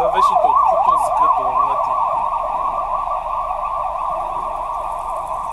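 Ambulance siren sounding a fast yelp, its pitch sweeping up and down about four times a second, slowly fading as the ambulance pulls away ahead.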